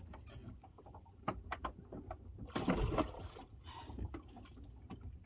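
Hands working in a bass boat's livewell to grab a smallmouth bass: scattered knocks and clicks against the tank, with a louder rush of splashing water about two and a half seconds in.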